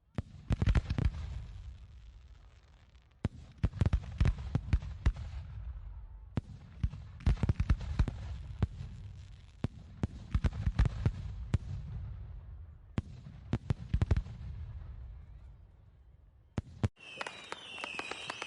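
Fireworks going off in repeated volleys of rapid sharp bangs, about six volleys a couple of seconds apart, with a low rumble carrying on between them. Near the end the bangs stop and a steady hiss with a high whistling tone takes over.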